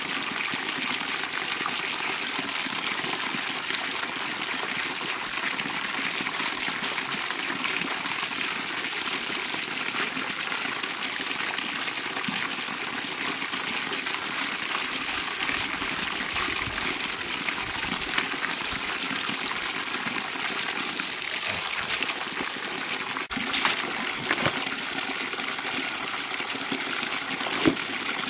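Steady gushing of a stream of water pouring into a full plastic bucket. A few short knocks and splashes from clothes being scrubbed and handled on a wet concrete slab stand out, most of them in the last third.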